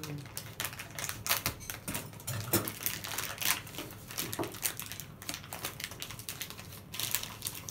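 Clear plastic wrapping being worked off a small rubber stamp by hand: irregular crinkling rustles and quick light clicks, like fitful typing.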